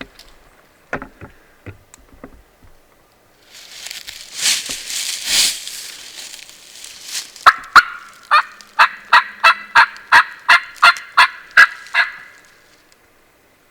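Leaves rustled and scratched for a few seconds, mimicking a turkey feeding. Then a hunter's turkey call gives a long run of about fourteen evenly spaced hen yelps, about three a second.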